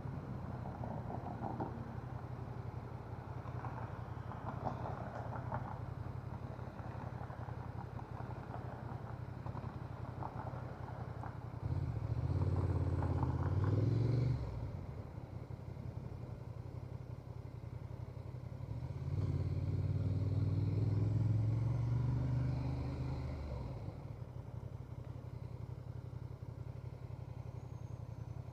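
Honda Transalp 750's parallel-twin engine running on the move at low throttle, getting louder twice under acceleration. The first pull cuts off suddenly; the second is longer and eases back down.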